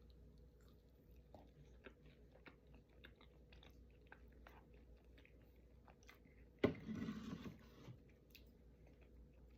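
A person chewing food close to the microphone, with small wet clicks of the mouth. About seven seconds in there is a louder noise lasting about a second.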